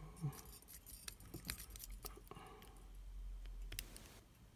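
Faint irregular clicks and scratching of a lock pick working the pin stack of a five-pin laminated padlock under tension from a turning tool.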